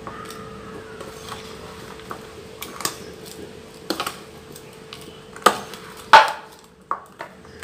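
Steel spoon stirring a sticky beaten-rice and jaggery-syrup mixture in a stainless steel bowl, scraping and clinking against the bowl. The clinks come scattered, and the two loudest fall a little past halfway.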